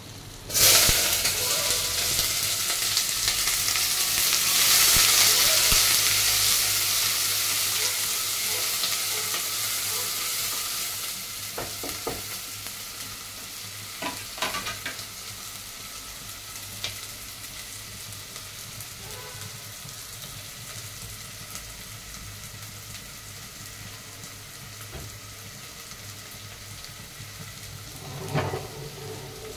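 Chopped onions dropped into hot oil in a metal pot, sizzling loudly at once, then the sizzle slowly dying down over about ten seconds. They are then stirred, with a few knocks of the spatula against the pot.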